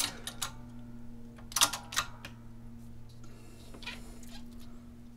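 Two sharp metal clicks about a second and a half and two seconds in, from the hydraulic bench press and reducing die as a coin ring is pressed smaller, over a steady low hum.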